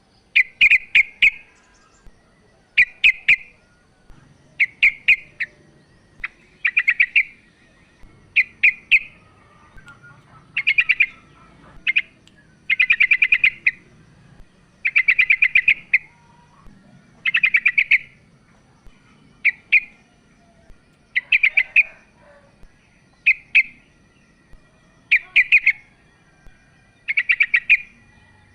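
Female yellow-vented bulbul (trucukan) calling: short bursts of rapid chattering notes, repeated about every two seconds.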